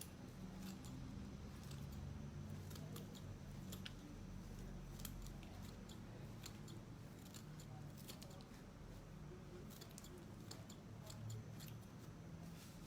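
Scissors snipping, faint irregular clicks, typical of trimming the excess moss off a craft piece.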